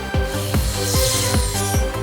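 Upbeat electronic background music with a steady driving beat, with a brief hissing sweep about a second in.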